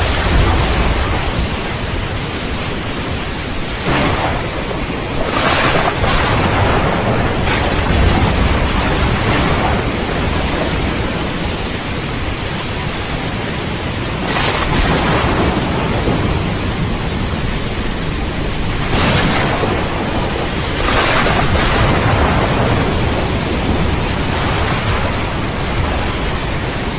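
Steady heavy rain with thunder rumbling low underneath, strongest near the start and about eight seconds in. Several short swells of hiss rise and fall through the rain.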